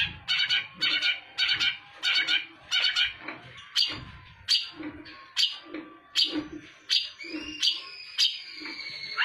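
Long-tailed shrike (cendet) calling: a run of short, harsh, scolding calls, quicker at first and then about two a second. Near the end a thin, steady high whistle comes in.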